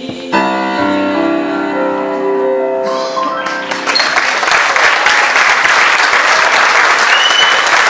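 Piano playing the last notes of a song, then about four seconds in a room full of people breaks into applause that keeps going.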